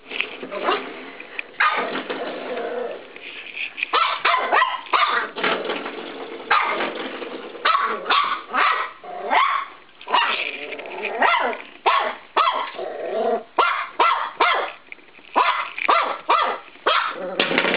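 Norfolk Terrier puppy barking and yipping in rapid, repeated bursts, with rough growling in between, in excited play.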